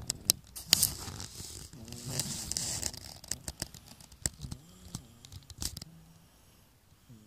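A man with a cold snoring in his sleep, several drawn-out snores, over rustling and a string of sharp clicks. The loudest part is a burst of rustling about two seconds in.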